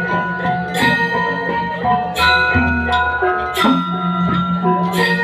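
Balinese gamelan playing dance music: bronze metallophones ringing in sustained pitched notes over a low held tone, with sharp strikes about every second and a half.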